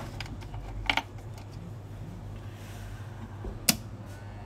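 A few sharp light clicks from small objects being handled on a workbench, a quick double click about a second in and a single one near the end, over a steady low hum.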